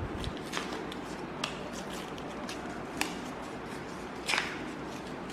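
Handling of a small baked cake and its paper baking cup: a few separate light clicks, then a short crinkle about four seconds in.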